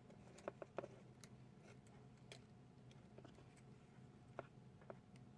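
Near silence with faint, scattered small clicks and taps as the blender's switch parts are handled.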